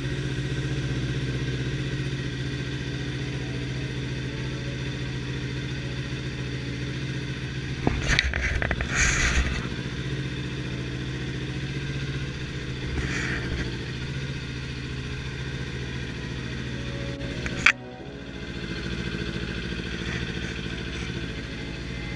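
Kawasaki sport motorcycle engine idling steadily, with a few short bursts of noise around the eight- to nine-second mark and a sharp click a little before the end.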